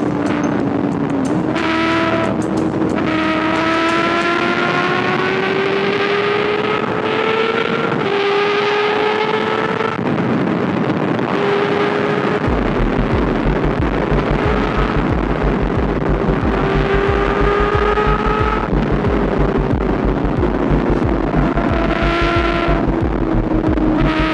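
Kawasaki ZX6R's 636 cc inline-four engine and exhaust under way at speed, its note climbing slowly and stepping to a new pitch several times as it changes gear, with rushing wind on the microphone.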